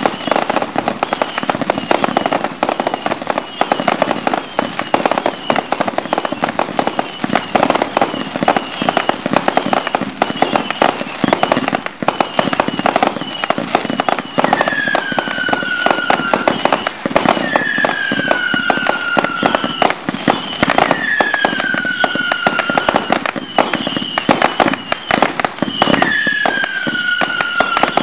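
Fireworks cakes and shells firing in a dense finale barrage: a continuous mass of rapid bangs and crackling. Short falling whistles recur about once a second throughout, and from about halfway in a longer, lower falling whistle repeats every few seconds.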